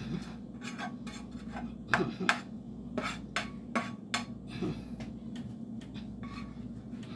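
A spatula scraping and knocking against a speckled nonstick frying pan as food is scraped out into a stainless steel mixing bowl: irregular scrapes and clacks, the sharpest about two to four seconds in.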